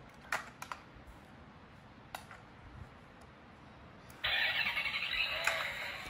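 A few sharp clicks as a battery-powered light-and-sound toy sports car is handled and switched on. About four seconds in, the toy's built-in speaker suddenly starts playing loud electronic sound effects and music.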